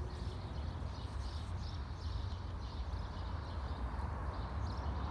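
Small birds chirping in short, repeated high notes over a steady low rumble of city background noise.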